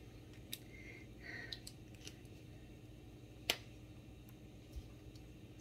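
A few scattered light clicks and taps, the sharpest about three and a half seconds in, over a low steady hum.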